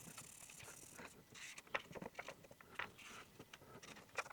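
Faint, irregular scratching, rubbing and light taps of small hand work on the opened iPad as the old battery adhesive is worked with isopropanol. A soft hiss fades out in the first second.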